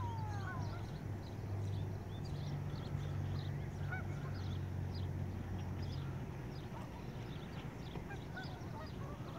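Geese on the water honking now and then in the distance, with many small birds chirping. A steady low hum lies underneath and weakens after about six seconds.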